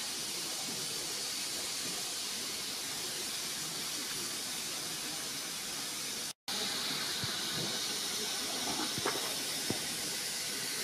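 Steady hiss of steam from a standing steam locomotive, broken by a brief gap about six seconds in, with a few faint clicks after it.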